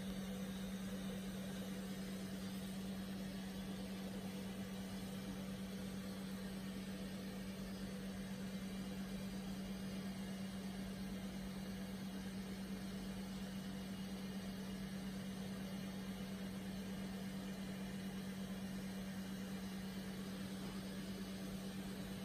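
Steady low machine hum, one unchanging tone over a soft even hiss.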